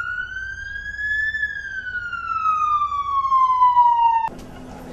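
A single siren tone that rises for about a second and a half, then winds slowly down in pitch and cuts off abruptly about four seconds in.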